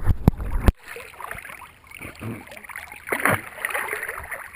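Lake water sloshing and splashing against an action camera held at the surface as a person moves into the water, with louder splashes about three seconds in. It opens with a loud low rumble that cuts off abruptly under a second in.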